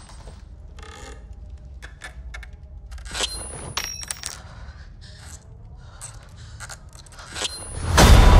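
Sparse small metallic clicks, ticks and light scrapes, like a nail dropping and rattling on a wooden floor, over a low steady rumble. A loud crash breaks in near the end.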